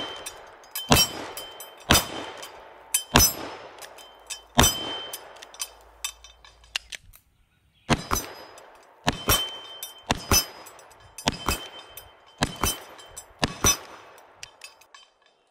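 Colt 1873-style single action revolver fired in steady strings of about one shot a second, each shot followed by the ring of a steel plate target being hit. The even pace is set by cocking the hammer before each shot. Four shots, a pause of about three seconds, then six more shots.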